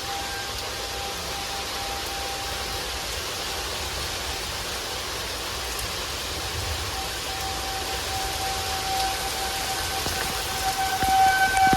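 Steady rain falling, with a distant outdoor tornado warning siren holding a steady tone that fades out after a few seconds and swells back, loudest near the end.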